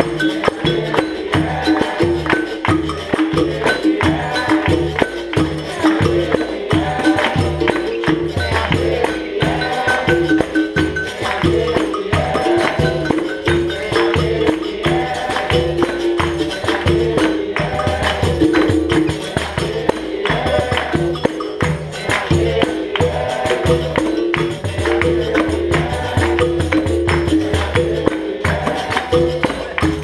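Capoeira Angola roda music: a pandeiro and an atabaque drum keep a steady rhythm under voices singing.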